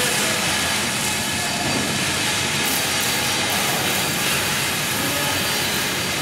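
Steady machinery din filling a large factory hall: an even, continuous noise with a few faint steady tones and no distinct strikes.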